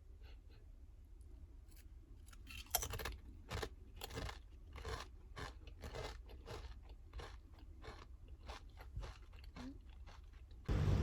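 Someone crunching and chewing Pringles potato crisps: a quick run of short, sharp crunches starting about three seconds in. Near the end a louder steady rushing noise cuts in.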